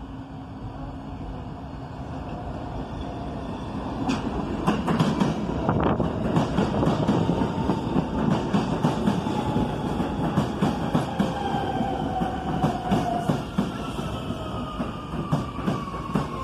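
R160B subway train with Siemens propulsion running on the rails. From about four seconds in it gets louder, with wheels clacking over rail joints, and near the end a motor whine falls in pitch.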